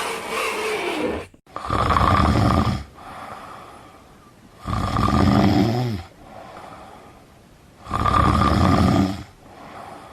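A person snoring: three loud snores about three seconds apart, each followed by a quieter breath.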